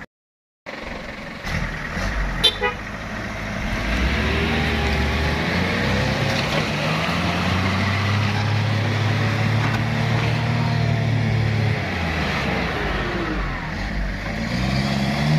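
Ford Ranger pickup's engine working hard under load while it tows a stuck 4x4 through deep mud, held at a steady high pitch for several seconds, then easing and picking up again near the end. A few sharp clicks sound just before it.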